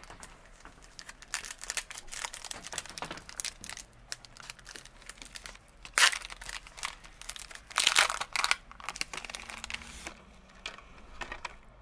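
Shiny foil trading-card pack wrappers crinkling as they are handled and one pack is torn open, with the loudest rips about six and eight seconds in and only light rustling near the end.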